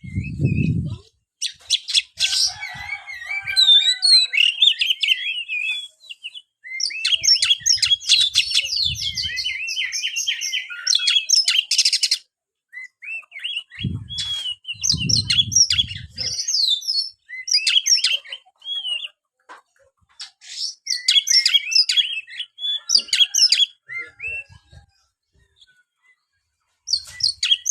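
Oriental magpie-robin (kacer) singing a loud, varied song of rapid whistles, trills and chirps, delivered in several long bursts with short pauses between them. Low rumbles come in twice beneath the song.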